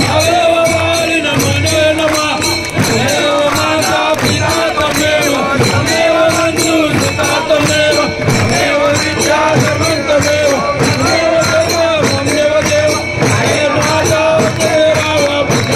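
Devotional festival music: a steady drum beat with jingling percussion and a held, wavering melody line on top.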